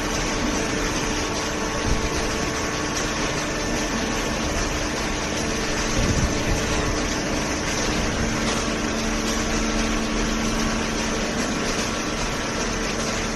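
Hydraulic cardboard baler running: a steady machine hum from its motor and hydraulic pump, carrying a few held tones, with a brief knock about six seconds in.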